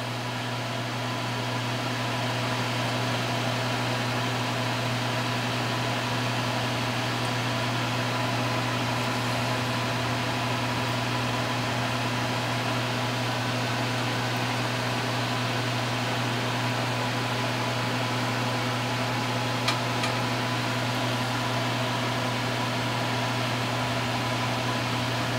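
Soldering fume-extractor fan running with a steady hum and hiss, with one faint click about twenty seconds in.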